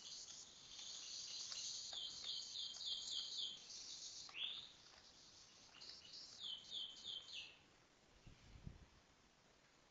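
Songbird singing: fast runs of repeated high notes, with a rising whistle about four seconds in and a second run of repeated notes. The song stops about three-quarters of the way through.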